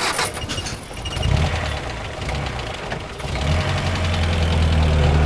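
A vehicle's engine idling with a low, steady hum that grows louder about three seconds in.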